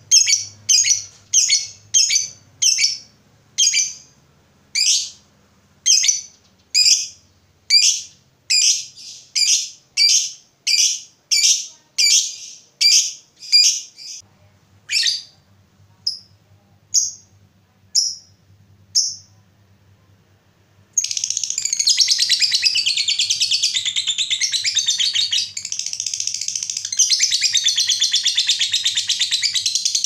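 Lovebird calling: sharp, high chirps about twice a second that thin out and stop partway through, then after a short pause a long, unbroken rapid chatter, the long 'ngekek' trill that keepers prize.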